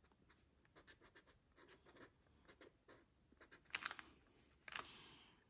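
Faint scratching of a pen on planner paper as letters are written and traced over a second time, with two slightly louder strokes about four and five seconds in.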